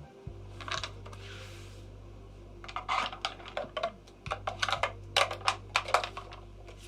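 Rapid, irregular clicking, like keyboard typing: a few clicks at first, then a dense run of them from about three seconds in to near the end, over a steady low hum.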